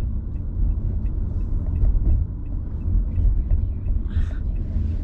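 Car driving on the road: a steady low rumble of engine and tyres, with a brief soft hiss about four seconds in.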